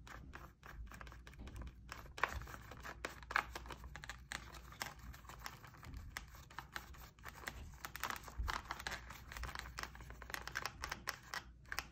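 Flattened plastic water bottle crinkling quietly under the fingers while a paintbrush works paint onto it: many small, irregular clicks and rustles.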